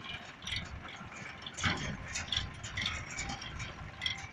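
Sonalika DI 35 tractor pulling a metal trailer, with irregular ticking and rattling over a low, uneven engine rumble.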